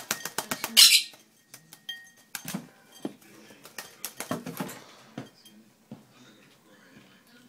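A parrot bathing in a shallow bowl of water, flapping its wings and splashing. A fast run of flaps and splashes peaks about a second in, followed by a few shorter bursts of splashing.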